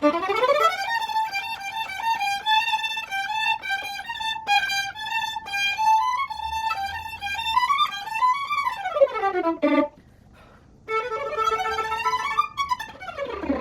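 Solo violin playing fast passagework: quick runs of notes climbing and descending, broken by a pause of about a second before the playing resumes.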